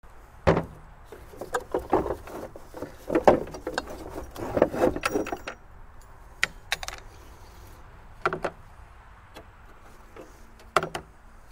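Metal lawn mower parts knocking and clanking as the transmission and pulley assembly is handled and taken apart: a quick run of knocks and clicks in the first half, then a few single knocks.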